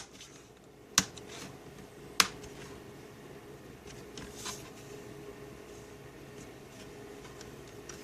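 Plastic screen bezel of a Dell Inspiron 15-3521 laptop being pressed back on, its clips snapping into place: three sharp clicks about a second apart, then a softer one about halfway. A faint steady hum runs underneath.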